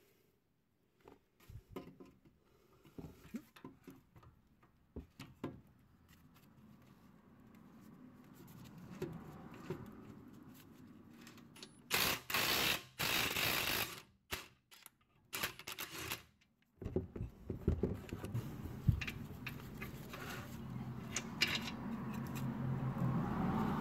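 Rusty 19 mm brake caliper bracket bolts being broken loose with a socket: scattered metallic clicks, then a loud burst of rapid rattling hammering from an impact wrench about twelve seconds in, and a second, shorter burst a couple of seconds later.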